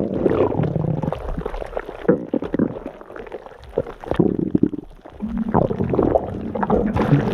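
Human stomach growling: gurgling rumbles that die down in the middle and build again about five seconds in, with a few short gliding squeaks.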